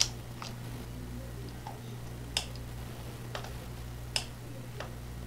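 Computer mouse clicking: a handful of sharp clicks a second or two apart, the loudest at the start and about two and four seconds in, over a steady low electrical hum.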